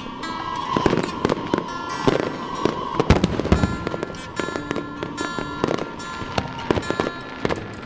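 Fireworks going off in rapid succession, a steady run of booms and sharp cracks, with music playing underneath.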